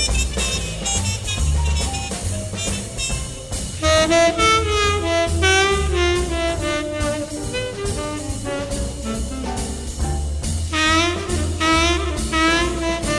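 Small-group jazz in swing time: a saxophone plays a melodic solo over walking bass and drums. The horn line enters about four seconds in, breaks off briefly, and comes back near the end.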